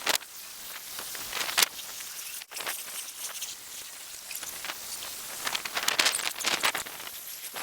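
Storm wind rushing through tree leaves: a steady high hiss, broken by sharp rustles and crackles, with a cluster of them a little past the middle.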